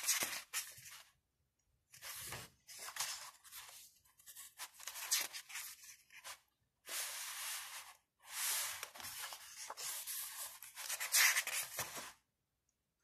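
Glossy photobook pages rustling as they are turned and handled. The sound comes in a series of bursts of paper noise, each lasting a second or more, with brief silent gaps between them. The longest and loudest burst comes near the end.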